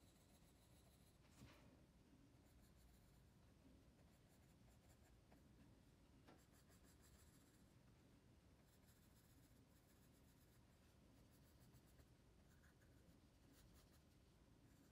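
Faint scratching of a pencil on drawing paper: short, quick shading strokes in several runs with brief pauses between.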